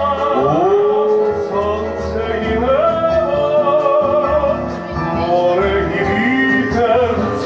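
A song: a singer's voice carrying a gliding melody over instrumental backing with low bass notes.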